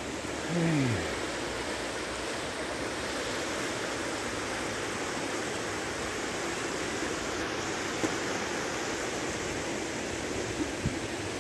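A river in spate after heavy rain, its fast floodwater rushing in a steady, even roar. A brief falling tone sounds about half a second in.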